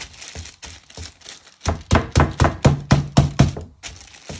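Wooden meat mallet pounding a chicken breast inside a plastic food bag on a wooden chopping board. A few softer taps come first, then a run of about nine firm strikes at roughly four a second in the middle.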